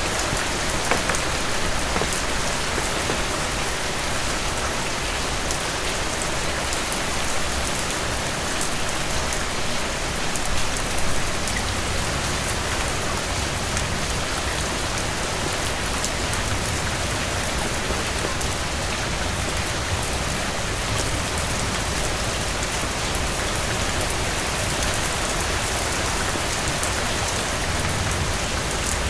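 Steady heavy rain falling on a surface, a dense even hiss with many small drop impacts.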